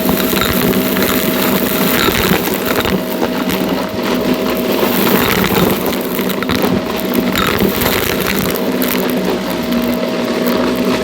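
Shark Navigator NV351 upright vacuum cleaner running with a steady motor whine, with scattered crackles as it sucks up crunchy debris.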